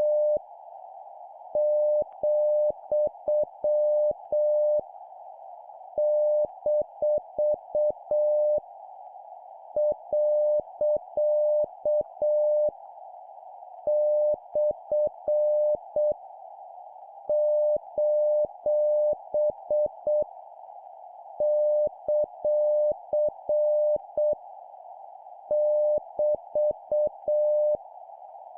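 Morse code (CW) practice tone keyed at 7 words per minute, a single steady mid-pitched beep sent as dots and dashes. The characters are punctuation marks, about seven of them, each about three seconds long with a pause of about a second between them, over a constant band of hiss.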